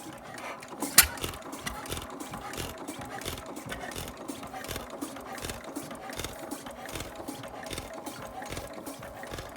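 1912 Gardner 1AF single-cylinder stationary engine running steadily, a regular beat of about three strokes a second. A sharp click stands out about a second in.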